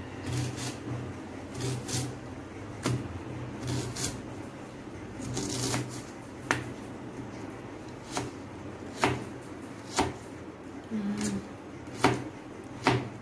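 Kitchen knife chopping a red onion on a plastic cutting board: irregular sharp knocks of the blade striking the board, with softer slicing sounds between them.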